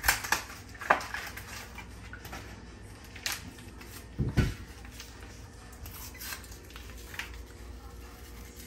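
Kitchen clatter from food preparation: a few separate sharp knocks and clicks of dishes and utensils, with a duller thump about four seconds in.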